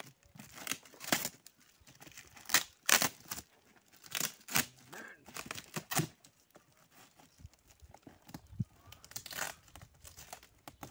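A cardboard box being slit open with a small knife: irregular scraping and tearing of packing tape and cardboard, with the strongest strokes in the first half and weaker scratching after.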